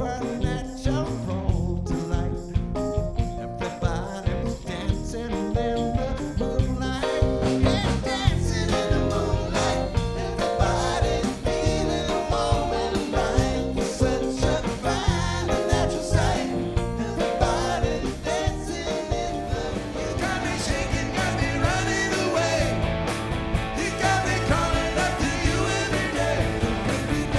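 A cover band playing a classic '70s hit: a full band with guitar and singing over a steady beat. The vocals come in stronger about seven seconds in.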